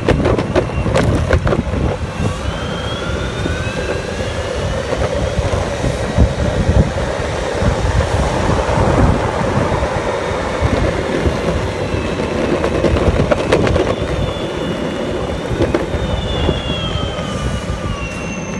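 Wind buffeting the microphone of a camera carried on a moving bicycle, over city traffic noise. High drawn-out squeals slowly rise and fall a few seconds in and again near the end.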